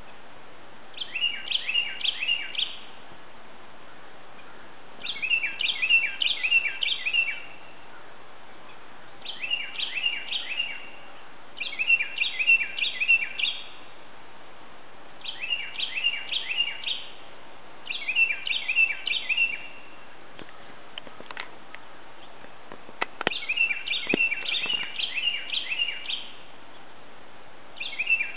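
Northern cardinal singing: phrases of quick, repeated down-slurred whistles, each a couple of seconds long, repeated every few seconds. A single sharp click about two-thirds of the way in.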